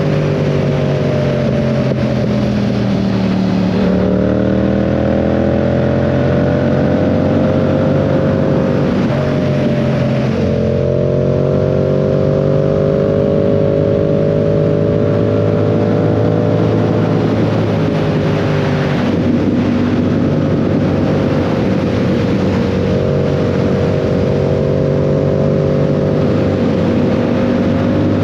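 2022 Yamaha R7's 689 cc parallel-twin engine running under way. Its note sags slowly and jumps up sharply twice, then holds fairly steady near the end. A steady rushing noise runs underneath.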